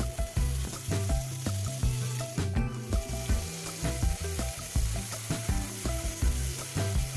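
Marinated paneer pieces frying in oil in a nonstick pan, a steady sizzle as the pieces are laid in with tongs. Background music with a regular beat plays underneath.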